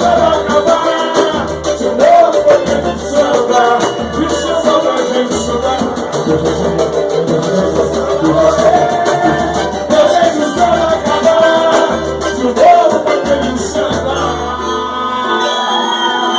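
Live samba band playing with voices singing along, over light rattling percussion and a deep bass drum beating steadily. The bass drum drops out about a second before the end as the song finishes.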